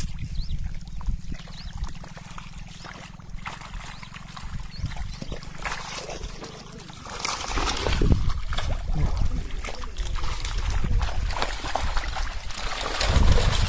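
Shallow muddy water splashing and sloshing as a fishing net holding caught fish is dragged through it, getting louder about halfway through.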